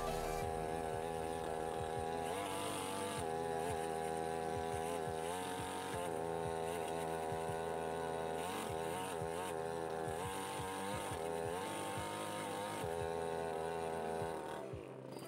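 Two-stroke petrol chainsaw running at high revs with its bar buried in a log, the engine pitch wavering as it bogs under the cutting load. Near the end the revs fall away and the sound drops off.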